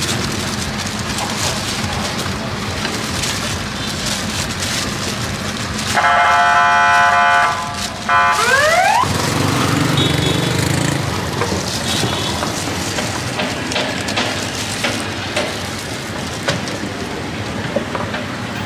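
Street traffic noise, with a loud vehicle horn blaring about six seconds in for about a second and a half, followed by a short rising tone.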